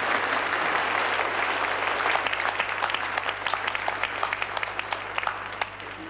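Audience applauding: dense clapping that thins out to scattered individual claps and dies away near the end.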